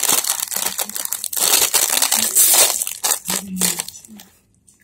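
Foil bag of Crunchy Cheetos crinkling and crackling loudly as hands pull it open and handle it, then falling quiet near the end.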